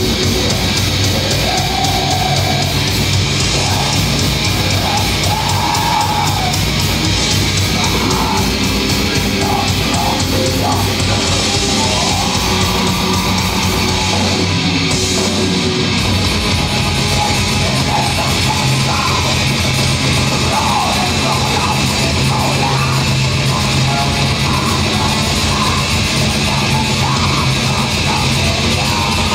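Heavy metal band playing live and loud: guitars and drums in a dense, unbroken wall of sound.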